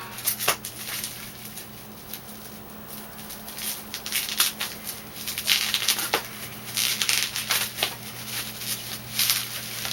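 Plastic packaging being pulled and worked off a hockey stick: irregular crinkling and rustling, busier in the second half, over a steady low hum.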